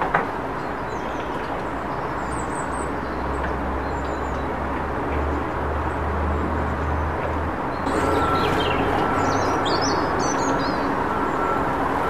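Small garden birds giving short, high chirps, a few about two seconds in and a busier run from about eight to eleven seconds in, over a steady background rumble that gets louder about eight seconds in. A sharp click comes right at the start.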